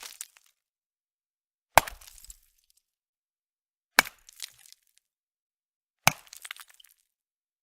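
A hammer striking solid ice three times, about two seconds apart, each sharp hit followed by a short scatter of smaller cracks and clinks as the ice chips.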